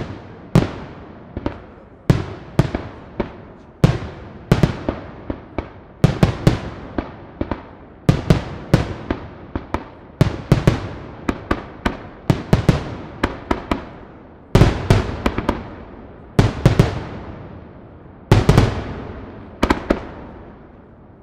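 Aerial firework shells bursting in quick succession, sharp reports about two a second, each trailing off in a rolling echo. About two thirds of the way through the bursts thin out to a few spaced booms, and they fade out near the end.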